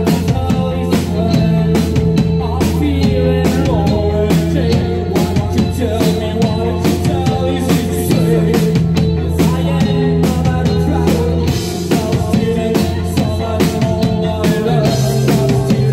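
Rock band playing live: a drum kit keeps a steady beat under electric bass guitar and keyboard. The bass note steps down about a second before the end.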